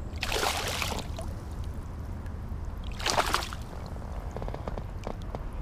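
Water splashing twice as a hooked largemouth bass is grabbed at the surface by hand and lifted out by the lip: a longer splash just after the start and a shorter one about three seconds in.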